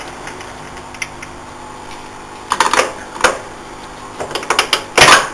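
Metal clunks and clicks from the hand-shifted speed-selector levers and gears of an old turret lathe's gearbox, with the machine not running. A cluster of knocks comes about two and a half seconds in, more follow, and the loudest, a heavy clunk, comes just before the end.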